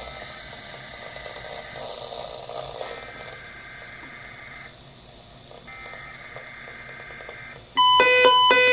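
Radio hiss with faint steady tones. Near the end a loud run of electronic alert tones starts suddenly, stepping between several pitches: the opening of an emergency-alert weekly test on the broadcast.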